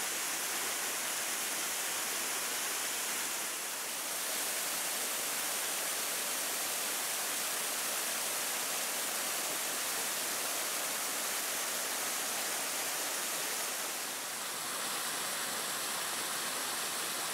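Steady rushing, splashing water from the portable Kaplan turbine's outlet pouring into the channel, with a small weir spilling behind it. The outlet has no draft tube, so the water leaves at high speed. The sound dips slightly twice, about 4 s and 14 s in.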